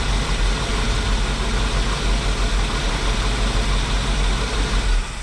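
1978 Chevy C50's 350 V8 idling smoothly and steadily, running with its ignition fed by a jumper wire straight from the battery because the faulty ignition switch is not passing power. The sound cuts off suddenly near the end.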